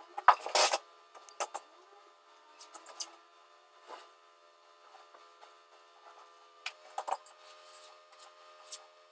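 Scattered short scrapes and knocks of hand tools working on a drywall ceiling, the loudest about half a second in, over a faint steady hum.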